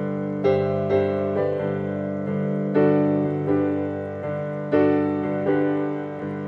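Piano music: an unhurried melody of single notes struck every half second or so over sustained low notes.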